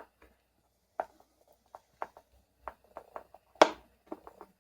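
Parts of a washing-machine damper being handled by hand: a string of small clicks and taps, with one sharper click about three and a half seconds in.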